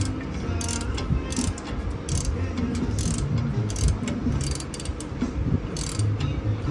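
Hand socket ratchet worked in short strokes, clicking in repeated bursts about once or twice a second, as the leveling-shackle bolts on a 2003 Silverado's rear leaf spring are run in.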